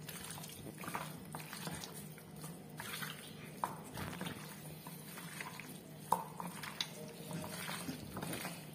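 Faint, irregular wet squishing of hands kneading chicken pieces in a thick masala paste marinade, over a low steady hum.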